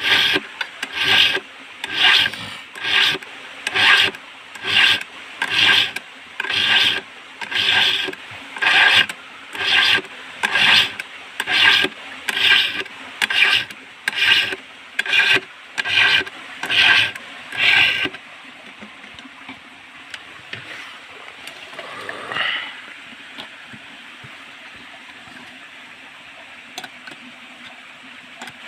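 A hand file sharpening the saw chain of a Stihl MS 382 chainsaw, rasping across the cutters in steady strokes about once a second. The strokes stop about two-thirds of the way through, followed later by a single short scrape.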